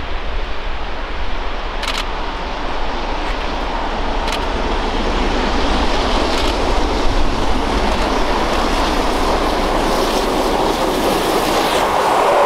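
Three-cylinder Peppercorn A1 Pacific steam locomotive 60163 'Tornado' and its train approaching and growing steadily louder, then passing close near the end with a rush of steam and rolling carriages. Wind buffets the microphone throughout.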